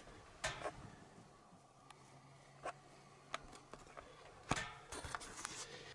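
Faint handling noise from a handheld camera being moved about inside a wooden tower blind: scattered knocks and clicks, with a short burst of rustling and knocking near the end. A faint low hum runs underneath from about two seconds in.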